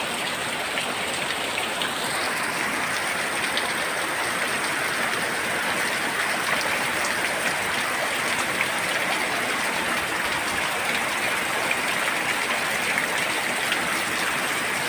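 Heavy rain pouring down steadily, splashing on a wet yard and on leaves: a dense, even hiss with scattered drop sounds, turning a little sharper about two seconds in.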